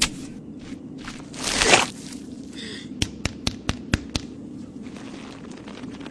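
Dry sand being scooped and handled by hand, scraping and crunching. A loud rushing swish comes about a second and a half in, then a quick run of about seven sharp ticks, over a low steady hum.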